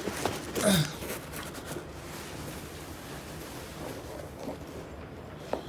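Sand pouring out of a tipped-up box onto the floor: a brief rustle, then a steady, even hiss of sliding sand.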